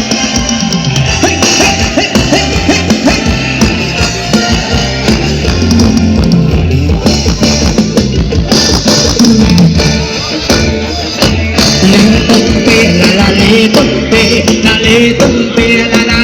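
Loud music with singing, drums and heavy bass, played through a large sound system.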